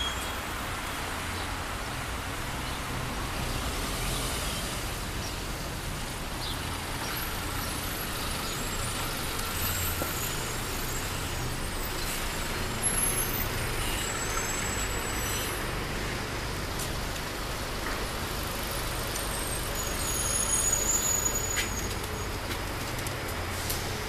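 Steady city street traffic, with buses and cars passing on the road.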